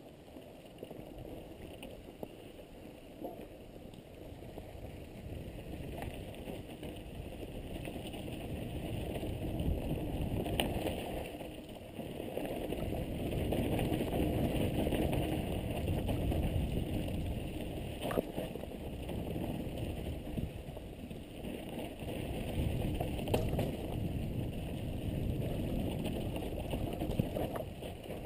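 Mountain bike riding fast down a dirt trail, heard from a helmet-mounted camera: a steady rush of wind on the microphone and tyre noise that grows louder as speed builds over the first ten seconds or so, with a few sharp knocks from bumps and the bike rattling.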